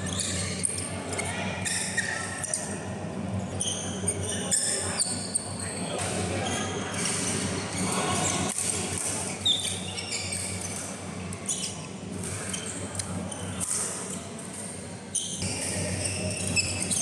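Badminton rally: sharp racket strikes on a shuttlecock every few seconds and sports shoes squeaking on the court mat, echoing in a large hall.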